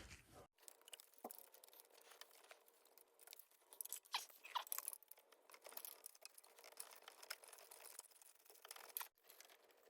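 Near silence with faint, scattered clicks and scrapes of a wrench working the timing belt tensioner.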